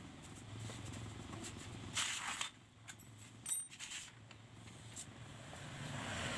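Handling noises from work on a motorcycle's bodywork and engine: a brief scrape or rustle about two seconds in, then a few light metallic clicks a moment later, over a low steady hum.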